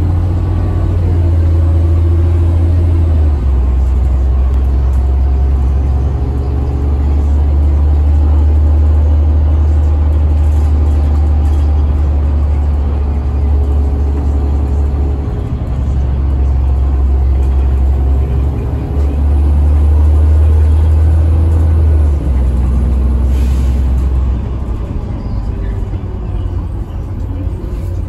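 Onboard sound of a Denning Phoenix low-floor bus under way, its CAT diesel engine and Allison automatic transmission giving a deep, loud drone that steps up and down in pitch several times. The drone eases near the end.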